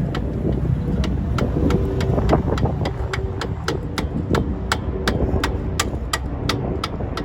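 Evenly spaced sharp metallic clicks, about three or four a second, over a steady low rumble, as a tool works on the Impala's wheel hub assembly until it comes free.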